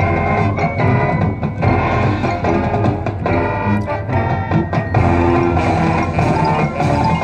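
High school marching band playing: brass and woodwinds over drums and front-ensemble percussion, with regular percussion strikes under held notes.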